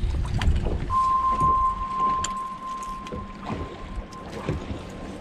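Wind and water around a bass boat drifting on the lake, with scattered small knocks, under a steady high-pitched electronic tone that comes in about a second in and holds for about four seconds.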